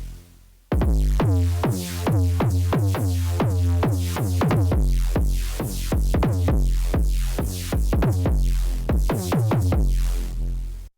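Arturia MiniFreak synthesizer playing a preset: a fast sequenced pattern of short plucky notes, about four a second, each sweeping quickly down in pitch, over a deep sustained bass. The pattern starts just under a second in and cuts off abruptly at the end.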